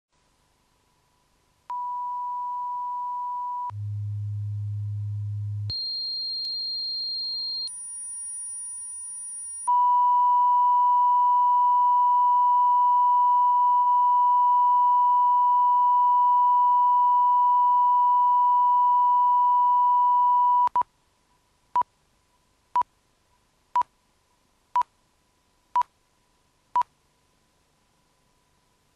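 Line-up test tones on the leader of a BBC programme tape. Steady pure tones step through pitches: a mid tone, a deep low tone, a high tone, then a very high whistle, each about two seconds long. Then a long steady mid-pitched reference tone runs for about eleven seconds, followed by six short countdown beeps one second apart.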